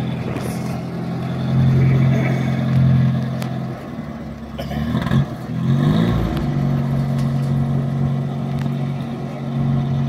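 Willys Jeep engine running steadily while its rear-mounted hydraulic backhoe digs. The engine note wavers and shifts in pitch around the middle, then settles back to a steady run.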